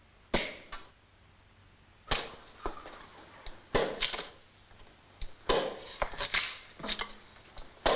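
A large blade being sharpened by hand: about ten rasping scrapes of steel drawn across a sharpening block, each starting sharply and fading, at an uneven pace.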